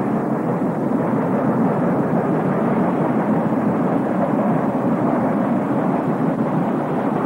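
NSWGR steam locomotive running with a train, heard from alongside the engine: a steady, dense rumble of exhaust and running gear with no separate beats standing out.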